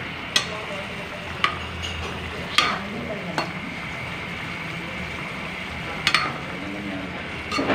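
Coconut-milk stew with tilapia simmering in a metal wok on a gas stove, a steady bubbling hiss, while a metal spoon stirs it and clinks sharply against the pan about half a dozen times.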